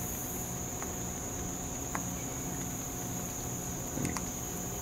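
Steady high-pitched insect chorus, with a couple of faint knocks of a wooden spoon against the pot about two and four seconds in.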